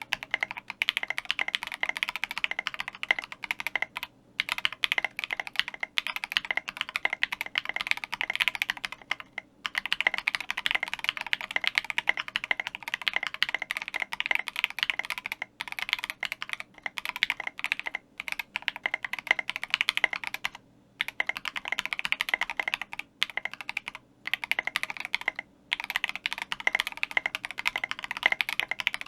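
Mechanical keyboard typing at speed: a Cannonkeys Savage65 with lubed Durock Alpaca linear switches on an FR4 plate, SA keycaps and polyfill dampening. A dense run of keystrokes breaks off for several short pauses.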